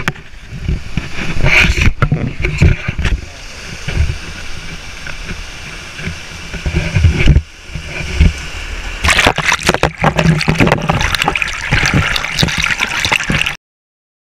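Mountain stream rushing over rocks, heard up close, with thuds and knocks from the camera being handled. About nine seconds in, the splashing grows louder and denser as the camera nears the water, and the sound cuts off abruptly just before the end.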